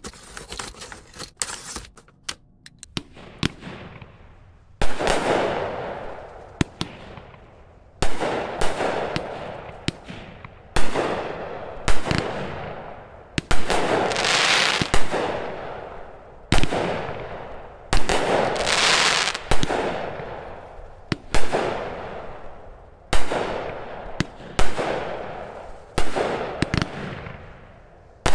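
Two Heavyweight Fireworks 'Starry Night' 200-gram 14-shot cakes firing: a sharp shot about every one and a half seconds, each followed by a crackling, fading burst of strobing stars. The first few seconds hold only small clicks and crackles before the first shot.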